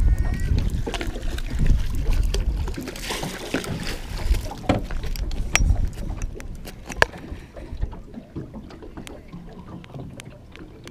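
Scattered clicks and knocks of rod, reel and landing net being handled in a small boat while a hooked bream is brought to the net. A low rumbling noise fills the first three seconds.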